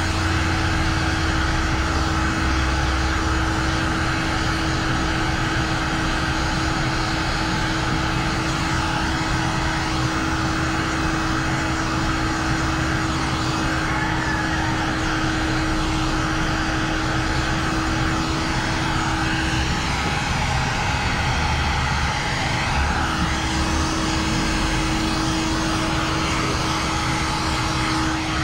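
Handheld electric heat gun running, a steady fan whir and rush of hot air, as it heat-shrinks tint film onto a curved rear windshield. Its steady hum drops out for a few seconds about twenty seconds in, then returns.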